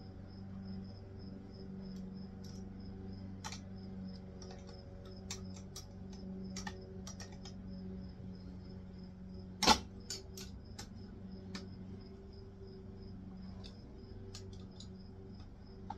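Scattered small clicks and taps of hands handling the wiring, terminals and metal parts of a winch control box, with one sharp, louder click about ten seconds in. Under it, a steady low hum and a faint, evenly pulsing high chirp.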